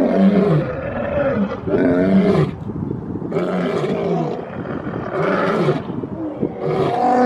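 Lion roaring in a series of loud, pitched roars, about one every one and a half to two seconds.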